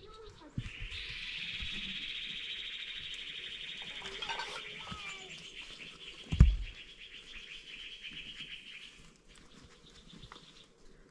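An animal's high, rapidly pulsing buzzing trill that runs about eight seconds and then fades out, with a single sharp thump partway through.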